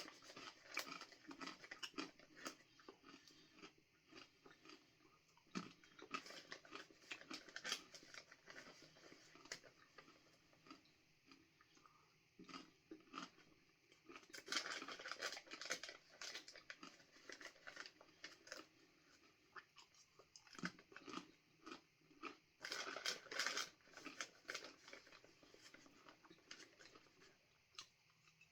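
Crisp, brittle crunching of dried banana chips being bitten and chewed close to the mouth, in quick irregular clusters that are loudest in two spells, about halfway through and again a little later.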